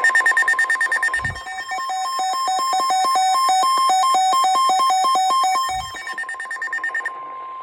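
Electronic Emergency Alert System alert tones: a rapid fluttering burst, then a quick string of beeps alternating between two pitches, then the flutter again. A steady single alarm tone starts near the end.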